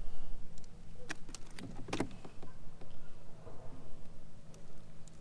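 A few scattered clicks and knocks against a plastic kayak hull as a freshly landed flounder is handled and unhooked on the deck, the strongest knock about two seconds in.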